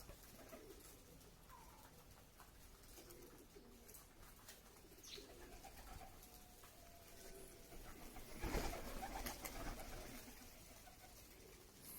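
Domestic pigeons cooing softly, low and faint, with a louder stretch of scuffling and clicking noise about eight and a half seconds in.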